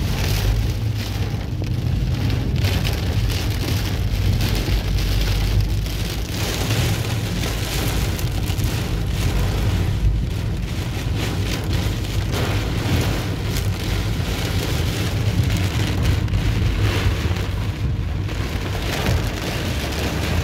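Torrential rain drumming hard and steadily on a car's roof and windshield, heard from inside the moving car, over a steady low rumble of the car and its tyres on the flooded road.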